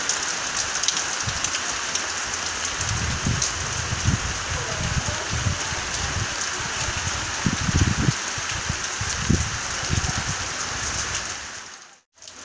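Light rain falling steadily, a fine even hiss of drops, with irregular low rumbles in the middle. It fades out just before the end.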